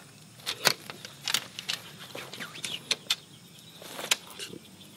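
Tent poles clicking and knocking as they are joined and fitted into the frame's central hub. The clicks come irregularly, about a dozen sharp ones, with a few louder knocks near the start and the end.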